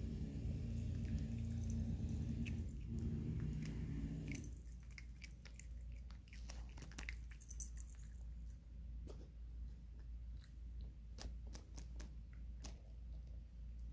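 A cat crunching dry kibble, with irregular sharp crunches and clicks of the pellets. A steady low hum underlies the first few seconds and stops about four and a half seconds in.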